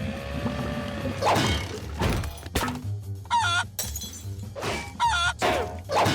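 Cartoon sound effects standing in for lightsaber clashes: a string of sharp whacks and crashes, with the same short squeaky cartoon noise played twice. A wavering sustained tone runs under the first second.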